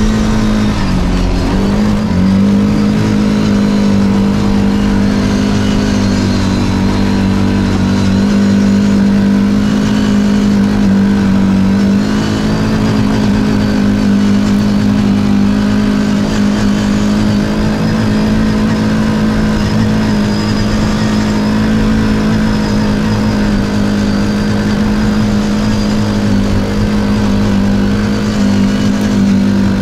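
CFMoto CForce 450L ATV's single-cylinder engine running while riding at a steady pace. Its revs dip briefly about a second in, then pick back up and hold nearly steady.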